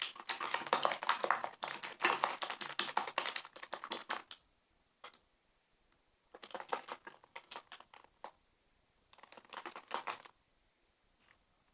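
Clear slime of transparent glue and activator being stirred, giving rapid sticky clicks. There is a long bout of stirring at the start, then two shorter bouts after a pause.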